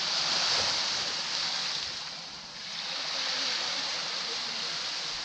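Sea waves washing up on a beach at close range: a surge of surf, a brief lull about two and a half seconds in, then a second surge.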